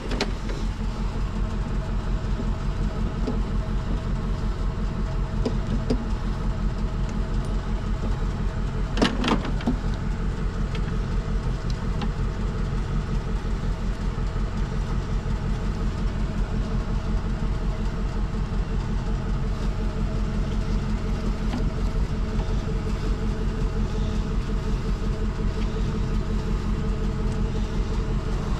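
Pickup truck engine idling steadily, with a single sharp click about nine seconds in.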